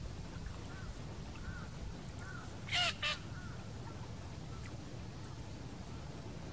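Waterbirds on a lake calling: a few soft, short calls, then two loud, clear calls in quick succession a little under halfway through, over a steady low background rumble.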